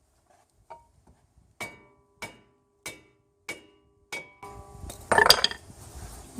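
Hammer blows on a stuck steel brake rotor, about six sharp ringing metal strikes at a steady pace, followed about five seconds in by a louder scraping clatter as the rotor breaks loose from the hub.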